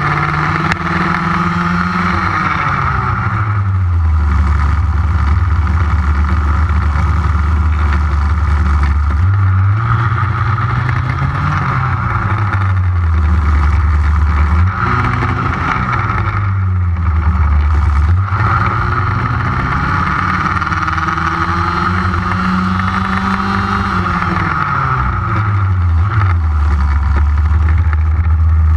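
HPI Baja 5B RC buggy's small two-stroke petrol engine running under load, heard close-up from a camera mounted on the car. Its pitch climbs and falls several times as the throttle opens and closes, with long stretches at a low, steady pitch in between.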